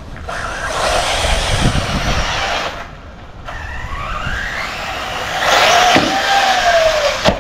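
Arrma Typhon 6S brushless RC buggy running hard over dirt, its motor whine rising in pitch as it speeds up for a jump. It goes louder with an arching whine while airborne, and there is a sharp knock near the end as it lands.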